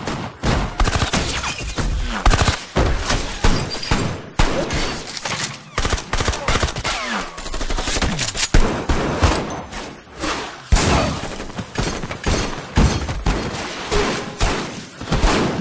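Shootout with many guns firing at once, pistols among them. The shots come in rapid overlapping volleys, several a second, with hardly a break.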